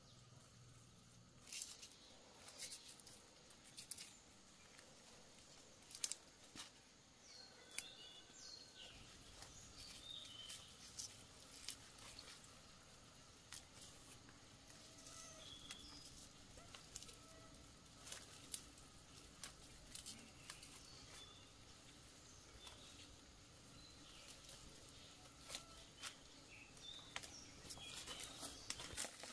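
Quiet outdoor ambience: scattered faint clicks and taps with a few faint, short bird chirps.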